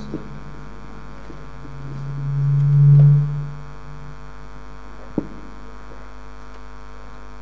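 Stage sound system giving off a steady low mains hum and buzz while its level is being turned down. About two seconds in, a low hum tone swells up and fades away again, and a single sharp click comes a little after five seconds.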